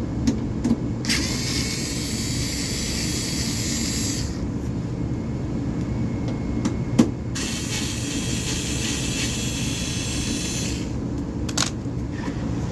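Steady low hum of running HVAC equipment, with a few sharp clicks and knocks as tools are put away, and two hissing stretches of a few seconds each.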